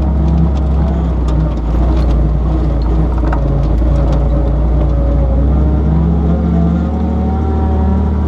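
Off-road vehicle's engine running steadily under load, heard from inside the cab as a low drone, with scattered knocks and rattles from the body and suspension over the rutted dirt track, most of them between about one and four seconds in.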